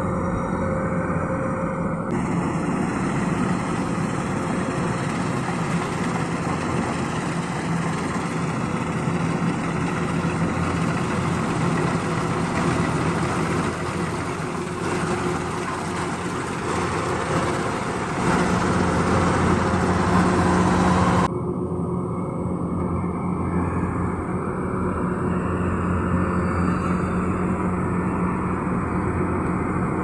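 Rice combine harvester's diesel engine running steadily under load while it cuts, with a steady hum. About two seconds in the sound turns brighter and hissier, and about twenty-one seconds in it abruptly turns duller again.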